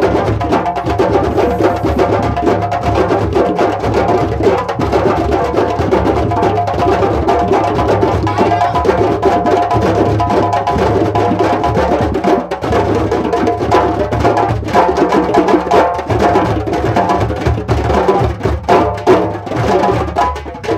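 Group of djembes played by hand, with a tall barrel drum struck with sticks, playing a fast, steady West African rhythm.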